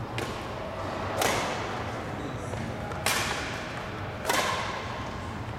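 Badminton rackets striking a shuttlecock during a rally: four sharp hits, the first faint, with a second or more between them, each ringing on in the reverberant gym hall.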